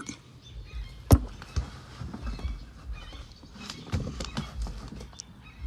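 Handling of a plastic capsule coffee machine: one sharp click about a second in, then scattered lighter knocks and taps.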